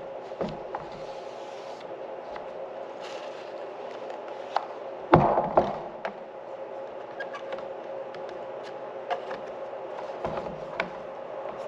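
Hand work on corn planter parts: light clicks and scraping, with one louder clatter about five seconds in, over a steady hum.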